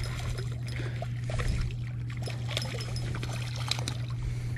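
Hooked crappie splashing at the water's surface as it is reeled in to the bank, a run of small irregular splashes and drips, over a steady low hum.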